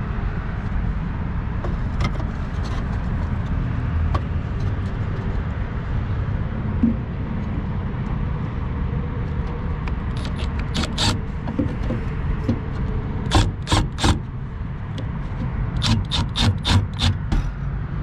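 Sharp clicks and knocks of tool work on a rooftop unit's relay mounting: a few faint ones at first, three loud clicks past the middle, then a quick run of about eight near the end. A steady low rumble sits underneath.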